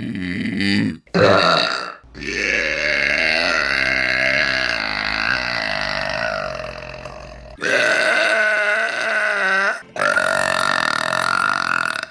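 A woman burping repeatedly: two short burps, then one long drawn-out burp lasting about five seconds, followed by two more.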